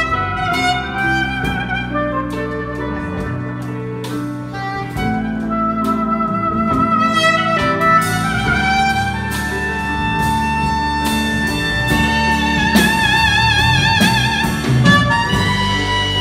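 Live jazz band playing: a soprano saxophone carries the melody over keyboard, electric bass, electric guitar and drum kit. Its long held notes take on a wide vibrato about twelve seconds in.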